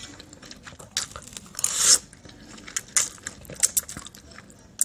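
Close-up mouth sounds of eating noodles: slurping the strands in and wet chewing, with scattered short clicks and smacks.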